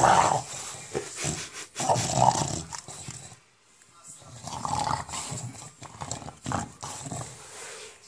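English bulldog growling in play with a tennis ball in its mouth: the rough, gremlin-like 'monster sound', in several irregular bursts with a short pause about three and a half seconds in.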